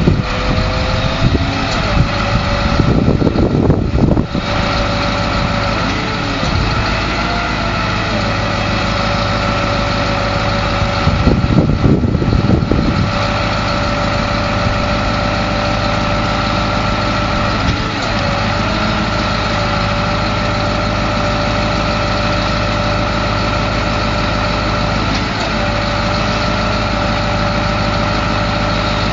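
Detroit 8.2L V8 diesel engine of a 1989 GMC TopKick bucket truck running steadily, with a steady whine that shifts slightly in pitch now and then. Two brief louder bursts of noise come about three and eleven seconds in.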